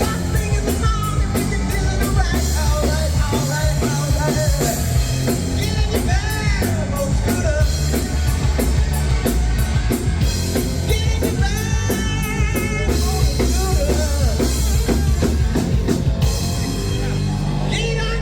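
Rock music: a band with drums and guitar playing under a singing voice with a steady beat.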